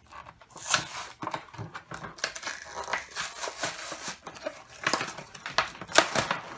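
Plastic packaging of a toy box crinkling and tearing as it is pulled open by hand: an irregular run of crackles, sharpest about five and six seconds in.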